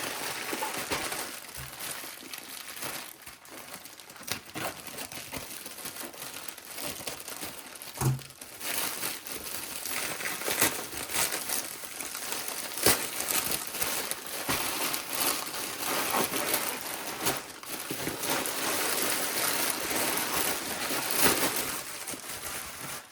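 Plastic bags of building bricks crinkling and rattling as they are handled and taken out of the box, with scattered clicks and a few sharper knocks.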